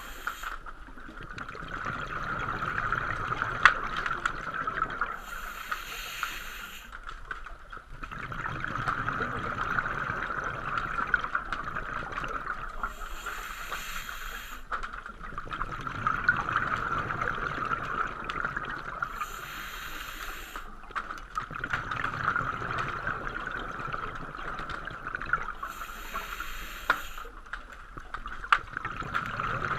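Scuba diver breathing through a regulator underwater, a regular cycle of brief hissing breaths and bubbling exhalations about once every six or seven seconds.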